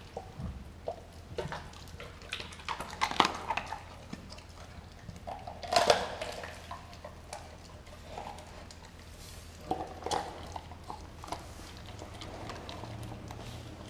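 Doberman chewing and tearing at a whole raw turkey, in irregular bites and clicks, loudest about six seconds in.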